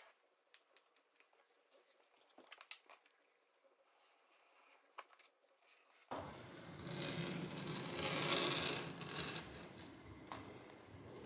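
A few faint scratches and clicks of a craft knife trimming the edge of self-adhesive vinyl sheet, then from about six seconds in the steady rustling and crinkling of the plastic sheet being handled and pressed flat by hand.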